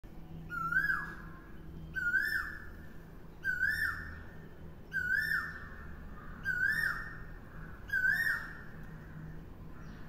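Common hawk-cuckoo calling 'akkoo' over and over. Each call is a short whistled note that steps up in pitch and then trails off, repeated six times about a second and a half apart.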